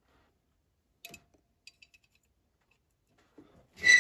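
Light metallic clicks, then one sharp, ringing clink near the end as steel valve springs and retainers are set into place on a 12-valve Cummins cylinder head.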